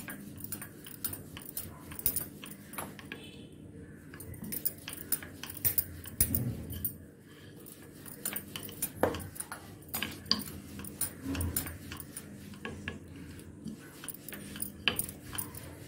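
Wooden rolling pin rolling out a large sheet of flour-dusted dough on a stone counter, giving irregular light clicks and knocks as the pin rolls and taps. A steady low hum runs underneath.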